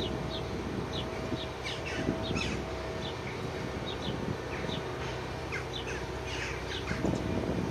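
Small birds chirping: many short, high notes that drop in pitch, about two a second.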